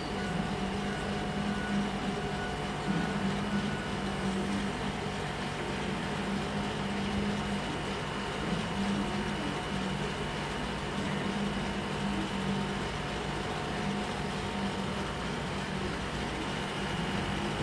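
A steady mechanical hum with several constant tones, unchanging throughout.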